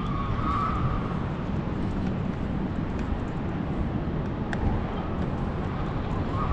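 Steady outdoor background noise on a seafront promenade: a low rumble of wind on the microphone and road traffic, with no distinct event standing out.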